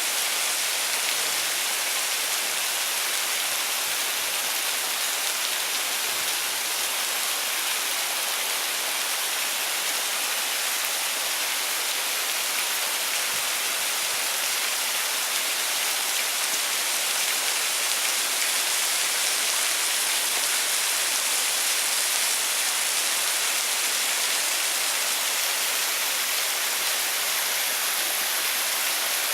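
Waterfall: a steady rush of falling and splashing water, an even hiss that holds unchanged throughout.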